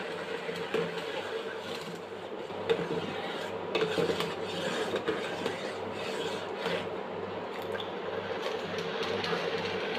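Pot of kashayam, a herbal decoction in water, boiling on the stove: a steady bubbling hiss with many small clicks and a low hum underneath.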